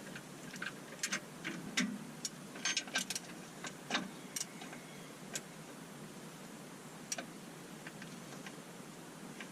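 Ratchet wrench clicking in short, irregular runs while tightening a rear trailing-arm bolt, with the nut held by a 19 mm spanner. The clicks are densest in the first half and thin out after about five seconds.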